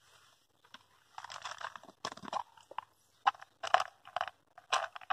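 Irregular short crunching and rattling handling noises, several in quick succession: a small plastic pot of pop-up boilies being opened and rummaged through.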